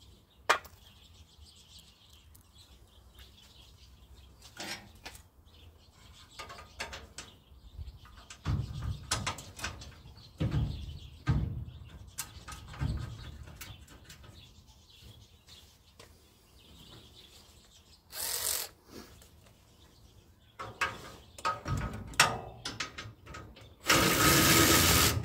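Scattered metal clicks and knocks of hand tools and bolts as a radiator is bolted into its support, then a power tool running for about a second near the end.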